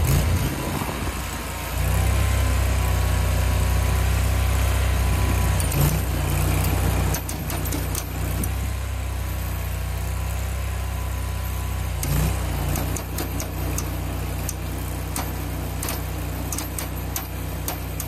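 Small 23 hp engine of a mini skid steer running just after starting, revving up about two seconds in and easing back down around seven seconds in, with a brief rise near twelve seconds.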